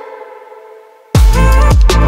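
Electronic dance music with a heavy bass line. The bass and beat drop out and the upper synth tones fade, then about a second in the full beat slams back in with deep bass and hard drum hits.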